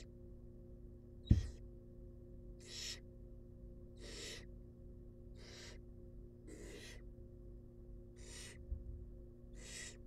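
Barn owl nestlings giving their rasping, hissing begging calls for food: about seven short hisses, one every second and a half or so. A single sharp thump about a second in is the loudest sound.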